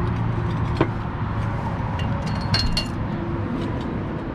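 Clay roof tiles knocking and clinking together as they are handled, with a sharp knock about a second in and a cluster of ringing clinks a little after two seconds. A steady low hum runs underneath.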